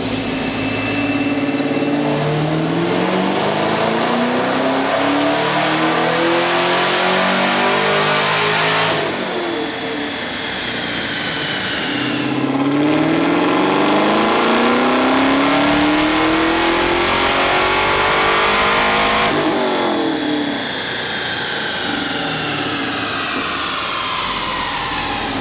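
Supercharged LT1 V8 making two wide-open-throttle dyno pulls. Each time the engine climbs steadily in revs with a rising supercharger whine, then drops back, and the whine falls as it coasts down near the end.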